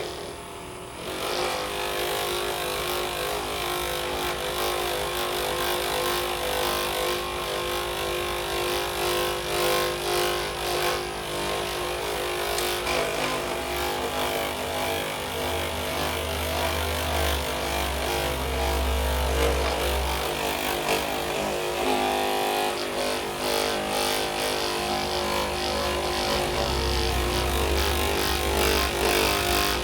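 Electric handheld massager running on the patient's back: a steady motor hum with a deeper throb that comes and goes, strongest in the second half.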